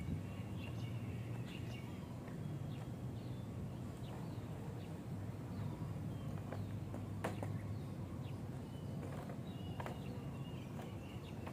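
Small birds chirping in short, repeated calls over a steady low hum, with a few sharp clicks.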